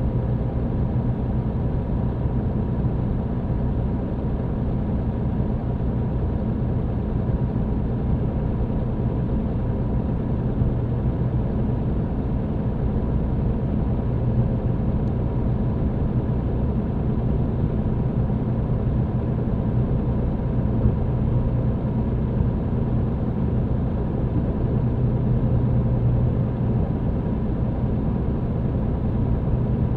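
MAN TGX truck's diesel engine running steadily, heard inside the cab, with a faint steady high whine over the low hum.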